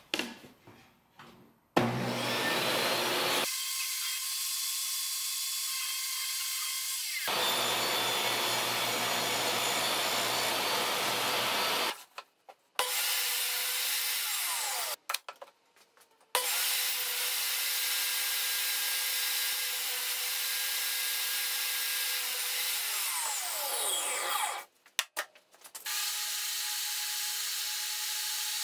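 Portable table saw running and cutting walnut boards, including crosscuts on a sled: a steady motor whine under the blade's cutting noise. It comes in several runs that start and stop abruptly, and the whine falls in pitch as the blade spins down about three-quarters of the way through.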